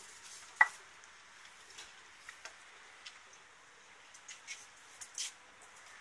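Faint, scattered crisp ticks of pet rabbits nibbling lettuce, with one sharp click about half a second in.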